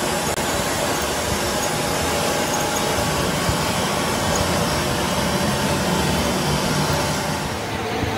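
Steady machine noise, an even hiss with a faint steady hum, whose upper part fades just before the end.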